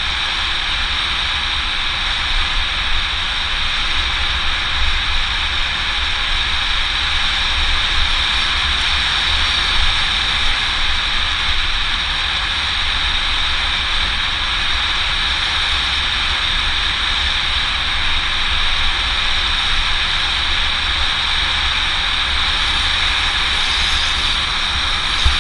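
Steady rush of wind buffeting the camera's microphone, with a low rumble, and tyre noise from a mountain bike rolling fast down an asphalt road.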